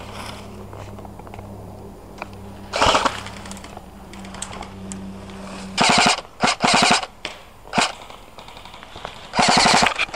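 Airsoft guns firing bursts of automatic fire: one burst about three seconds in, several short bursts a few seconds later, and a longer burst near the end.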